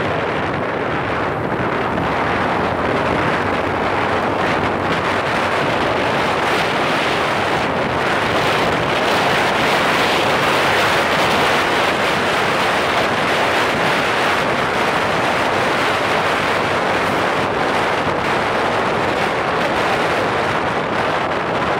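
Steady rush of wind on a phone microphone held by a passenger on a moving motorcycle, with road and engine noise underneath.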